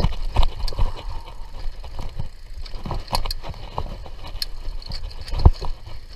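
Mountain bike riding over a rough dirt trail: a low rumble with irregular rattles and knocks as the bike jolts, and one heavier knock about five and a half seconds in.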